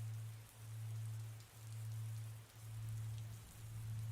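Steady rain ambience, with a low hum underneath that swells and fades about once a second.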